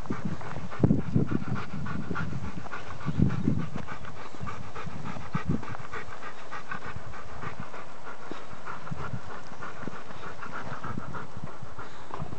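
Gordon setter panting hard and rapidly after exercise, close by, in a fast even rhythm of breaths. A few low bumps come about a second in and again just after three seconds.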